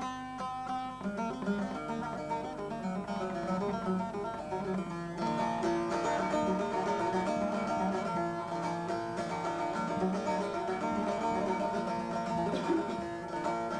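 Bağlama (long-necked Turkish saz) playing an instrumental passage between sung verses of a folk song: a quick plucked melody over steady droning strings, growing fuller about five seconds in.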